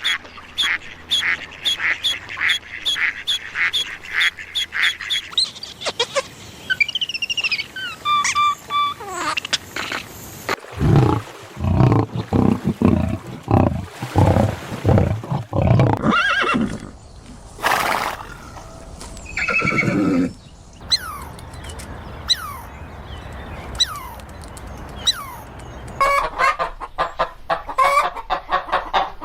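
A series of different farm animal calls one after another: quick repeated high calls at the start, pitched calls around a quarter of the way in, a run of low rhythmic calls through the middle, and quick repeated calls again near the end.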